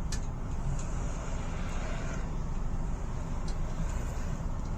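Steady rumble of road traffic going by.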